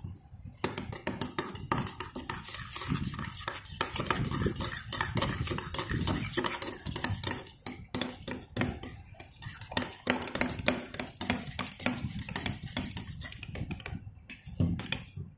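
Metal spoon stirring a watery glue slime mixture in a stainless steel bowl: rapid, uneven clinking and scraping against the bowl, breaking off briefly near the end.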